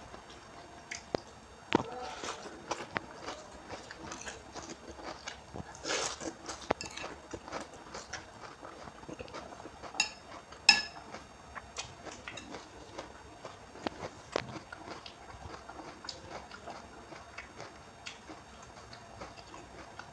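Close-up eating sounds of instant noodles with raw bean sprouts: irregular wet chewing and crunching with small clicks, busier around six seconds in. About ten seconds in come two sharp ringing clinks.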